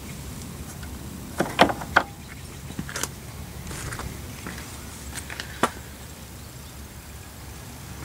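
Key-type battery disconnect switch being turned to off, a few sharp clicks about a second and a half in, followed by scattered lighter knocks over a steady low background rumble.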